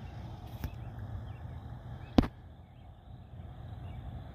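Outdoor trackside ambience: a low steady rumble with faint bird chirps, and one sharp click about two seconds in.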